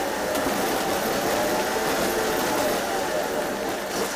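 City bus engine and drivetrain running while the bus drives, heard from inside the passenger cabin: a steady hum of several even tones that drifts gently up and down in pitch over road noise.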